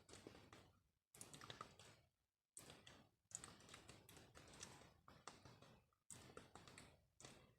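Close-miked ASMR trigger sounds: short crackly bursts full of small clicks, each about a second long and fading out, with brief silences between them.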